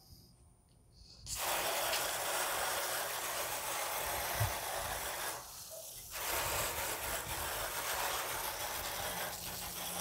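Garden hose spray nozzle spraying water onto an air conditioner's outdoor condenser coil to wash the dirt out of it: a steady hiss that starts about a second in, drops away briefly a little past halfway, then comes back.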